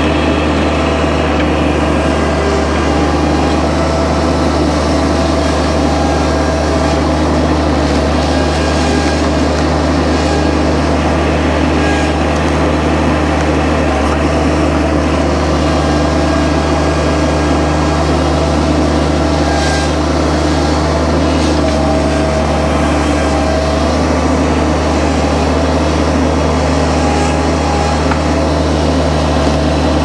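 An engine running at a steady, unchanging speed.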